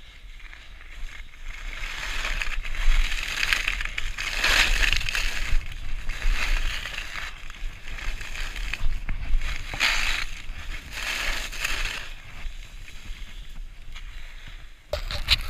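Skis scraping and carving over packed, chopped-up piste snow, a hiss that swells and fades with each turn, over a low rumble of wind on a chest-mounted action camera's microphone.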